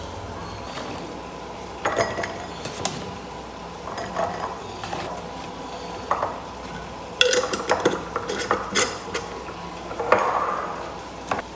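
Green chillies being dropped into a glass mason jar, a run of light clicks and knocks against the glass, then the jar's metal lid set on and screwed down with a louder clatter near the end. A low steady hum runs underneath.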